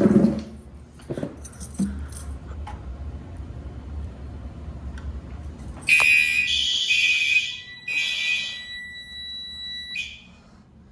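A few knocks, then about six seconds in a fire alarm sounder goes off with a high-pitched electronic tone. It comes in two loud bursts with a fainter steady tone between and after, and cuts off suddenly about four seconds later.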